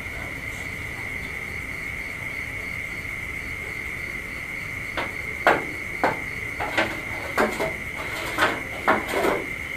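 About halfway through, a run of about ten irregular sharp knocks and taps sounds over a steady high chirr of night insects, likely crickets.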